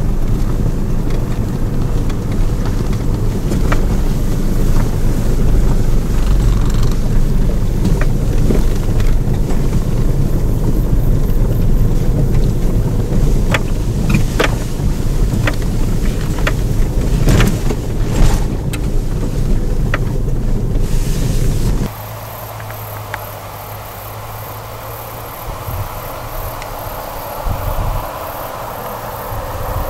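SsangYong 4x4 driving along a rough dirt track: a loud, steady low rumble of engine, tyres and wind, with scattered sharp clicks and knocks as tall grass brushes the body. About 22 seconds in it cuts off abruptly to a much quieter outdoor hiss with a fast, even high-pitched pulsing.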